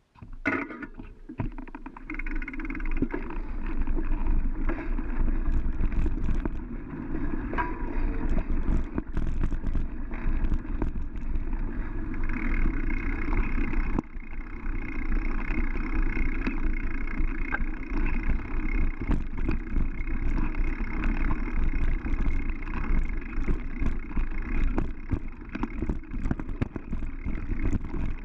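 Mountain bike riding over a dirt trail: a steady rumble of tyres and rattling bike parts, with frequent sharp clicks and knocks. It starts abruptly as the ride gets under way.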